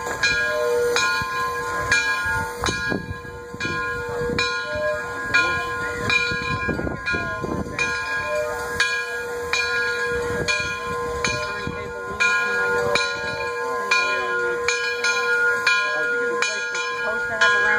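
Steam locomotive bell on Frisco 1630, a 2-10-0 Decapod, ringing steadily at about two strokes a second while the engine is moving: the warning bell rung as it moves through the yard.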